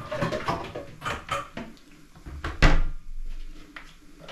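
Kitchen clatter: a run of short knocks and clicks from handling cookware and utensils, with one sharp, louder knock about two and a half seconds in.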